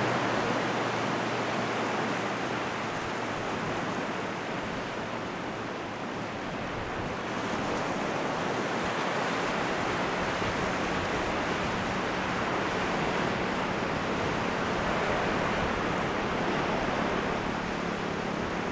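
Small sea waves breaking and washing up a flat sandy shore: a steady rushing surf that eases off a few seconds in and swells again.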